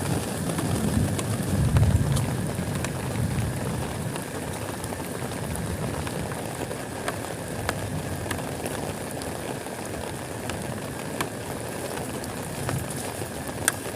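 Heavy rain falling on a tent, with scattered sharp drop ticks over a steady hiss. A low rumble swells about a second or two in.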